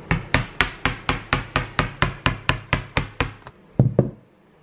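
A hammer tapping quickly and evenly on a screwdriver's handle, about four strikes a second, driving the screwdriver's tip into a pumpkin's shell. Two heavier, deeper knocks follow near the end.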